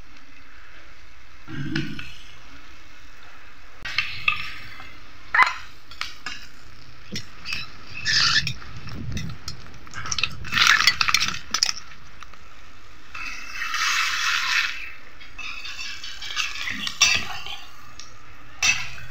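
Steel spoon and perforated steel skimmer clinking and scraping against a stainless steel pan as an egg is moved about, in irregular knocks and short scrapes with a longer scrape about two-thirds of the way through.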